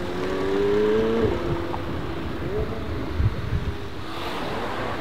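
McLaren 720S twin-turbo V8 accelerating away, its engine note rising for about a second and then dropping sharply at an upshift. It then pulls again more quietly, with a few short rises in pitch.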